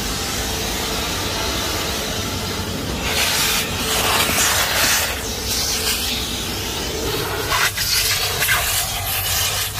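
Car wash vacuum running with a steady rushing hiss while its crevice nozzle is worked over a fabric car seat. From about three seconds in the suction grows louder and uneven as the nozzle picks up crumbs, with a few sharp clicks near the end.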